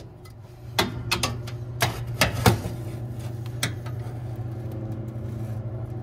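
Scattered sharp clicks and knocks of tools and screws against the sheet-metal housing of a rooftop HVAC unit, over a steady low mechanical hum.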